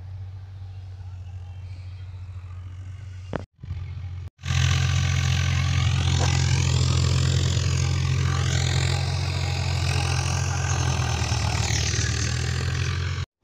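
Tractor engine running steadily in a field. It is fainter at first, then much louder after a break about four and a half seconds in.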